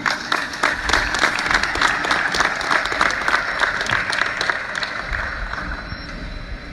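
Audience applauding, a dense spread of clapping that thins out over the last couple of seconds as a low rumble comes in.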